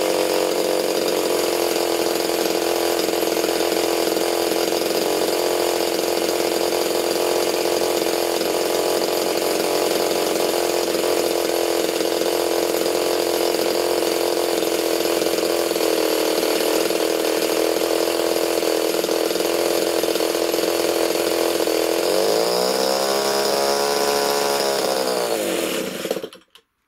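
RCGF 15cc Stinger single-cylinder two-stroke petrol model-aircraft engine running steadily at top-end throttle, driving its propeller. Its fuel line is disconnected and it runs out of fuel: about 22 seconds in, its pitch rises and then falls, and it cuts out suddenly near the end.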